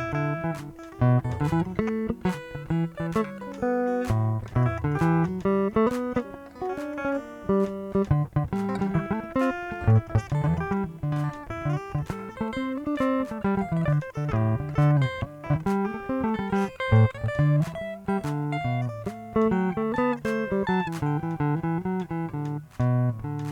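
Acoustic guitar played fingerstyle: a plucked melody in quick notes over a moving bass line.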